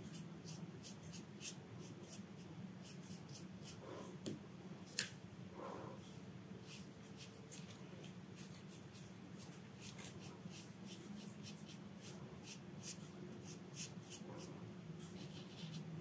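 Paintbrush bristles dabbing and stroking gouache onto paper: many faint, short scratchy strokes in quick succession, with one sharper click about five seconds in. A low steady hum runs underneath.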